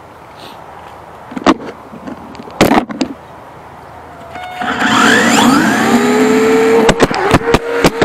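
Sharp knocks, then, about halfway through, the small electric motor and drivetrain of a WLtoys K989 RC car whine up in pitch as it accelerates away. The whine is heard close-up through the camera mounted on the car, with clicks and rattles over it near the end.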